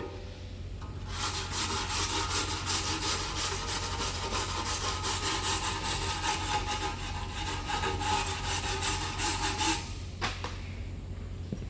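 Rust being scoured off a truck's brake hardware, a continuous rough scraping that starts about a second in and stops abruptly about ten seconds in.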